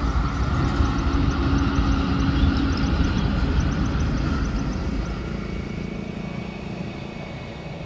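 Low engine rumble with a steady hum in its first few seconds, dying away over the last three seconds.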